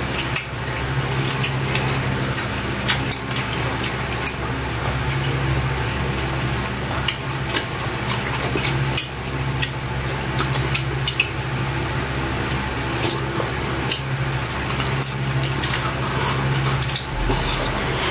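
Wet eating sounds of octopus in sticky adobo sauce eaten by hand: chewing, lip smacking and irregular sticky clicks, over a steady low hum.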